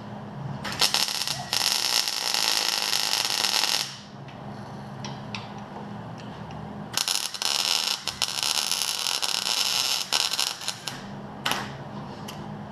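MIG welder tacking steel suspension brackets: two runs of crackling arc, each three to four seconds long, with a few light clicks between them.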